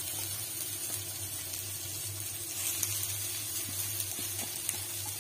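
Potato, onion and green chili frying in oil in a nonstick pan: a steady soft sizzle, over a low steady hum, with a few light clicks of a steel spoon against the pan in the second half.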